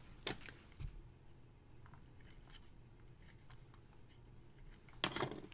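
Quiet room tone with a low hum, broken by small handling noises of a hand and pen on paper: a sharp click about a quarter second in, a few faint ticks, and a short louder rustle near the end.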